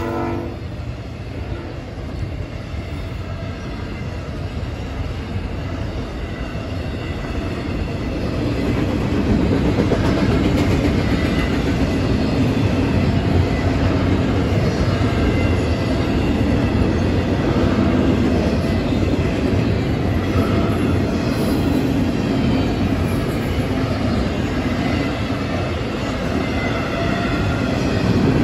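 Double-stack container well cars of a freight train rolling past at speed: a steady heavy rumble with wheel clatter on the rails, growing louder about eight seconds in. The last of a locomotive horn blast cuts off in the first half-second.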